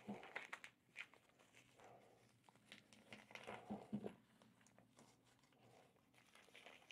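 Faint rustling and crinkling as a soft cloth pouch is handled inside a hard glasses case, in short scattered bursts, most of them near the start and between about three and four seconds in.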